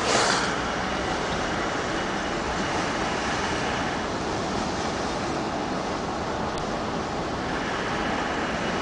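Steady rush of wind and road noise from a vehicle driving at speed. Right at the start, another vehicle passes close by with a brief whoosh.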